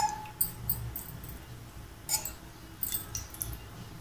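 Cooking oil heating in an aluminium pressure cooker, giving a few faint, scattered crackles over a low steady hum.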